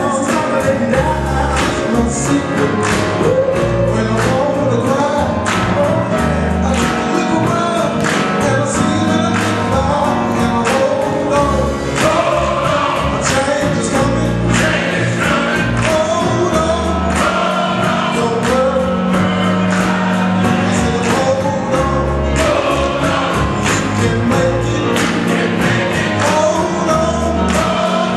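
Gospel choir singing over instrumental backing, with a steady beat of percussion and bass.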